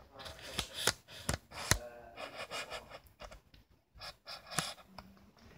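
A boy's breathy vocal noises, panting and gasping sounds, mixed with about four sharp knocks and rubbing from a handheld phone being moved around.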